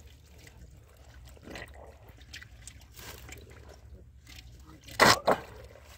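A hand and arm sloshing and squelching in a small hole of muddy water, groping for fish. About five seconds in comes a sudden loud splash.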